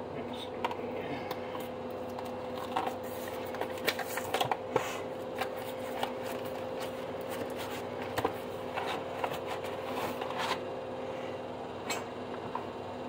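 A cardboard box of frozen breaded fish portions being opened and handled by hand: irregular rustling, crinkling and tearing of packaging, with scattered sharp clicks. A steady low hum runs underneath.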